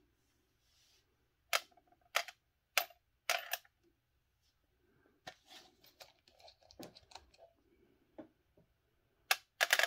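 A series of sharp clicks and light clatter of small parts and screws being handled and set onto a plastic RC car transmission case, with softer handling noise in between.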